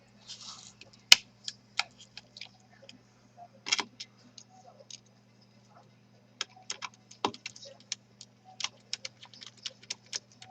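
Scattered small clicks and taps of hands and a screwdriver working inside an open laptop, fitting an M.2 NVMe SSD and its screw, over a steady low hum. The sharpest click comes about a second in, and the clicks crowd together in the second half.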